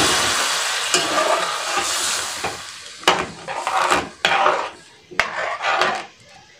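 Hot water sizzling as it hits a hot pot of fried dal, rice and vegetables, the hiss fading over the first three seconds. Then a metal ladle stirs the mix, scraping and knocking against the side of the metal pot several times.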